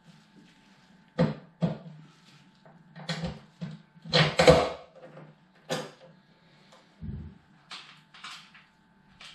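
Clinks, clicks and knocks of metal pannier-frame parts and fittings being handled and fitted into place on a motorcycle. There are about a dozen separate sharp knocks, the loudest cluster about four and a half seconds in and a duller thud near seven seconds, over a faint steady low hum.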